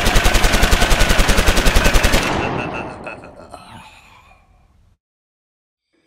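Machine-gun fire sound effect: a rapid, even burst of about ten shots a second that stops about two seconds in, then rings out and fades away over the next two seconds.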